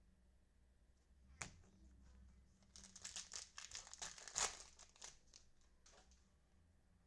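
A trading card pack's wrapper being torn open and crinkled: a cluster of crackly rustling for about two and a half seconds in the middle, after a single sharp click a second earlier.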